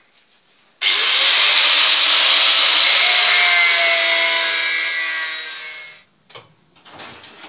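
Angle grinder cutting through rusted-in bolts on a car's front wing. It starts abruptly about a second in, runs for about five seconds and cuts off, followed by a few short knocks.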